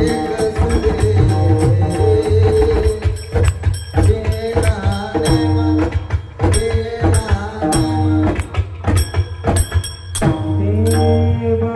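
Marathi devotional bhajan music: steady held notes over a low drone, with frequent hand-drum strokes and ringing cymbal clashes keeping the rhythm.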